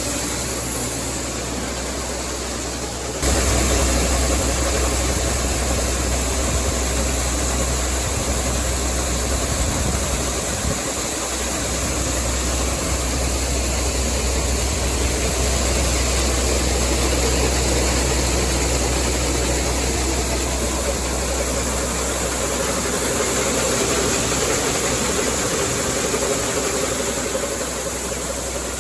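Tractor engine running steadily, driving a grain auger while a wagon of soybeans is unloaded. The sound gets suddenly louder about three seconds in, then holds steady.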